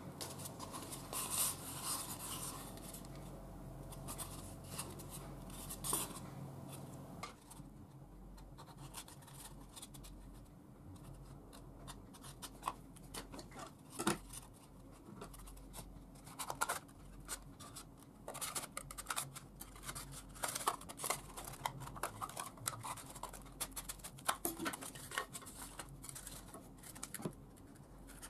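Scissors cutting a foam cup, with scratching and scattered clicks as the cup is handled.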